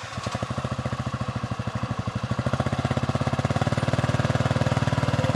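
Engine idling with a rapid, even pulsing beat, growing a little louder about halfway through.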